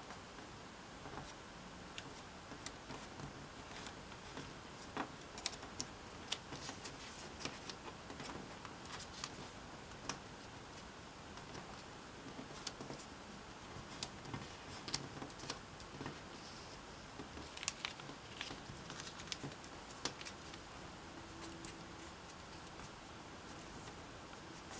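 Origami paper being folded and creased by hand: irregular paper crinkling and sharp crackling clicks as fingers press the folds flat, over a faint steady hiss.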